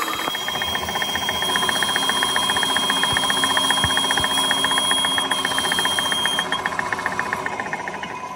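Metal lathe running with a truck axle hub turning in the chuck while a carbide-tipped boring tool cuts the internal thread: a steady mechanical running sound with a rapid, regular ticking. A thin high whine comes in about a second in and stops about two-thirds of the way through, and the sound fades near the end.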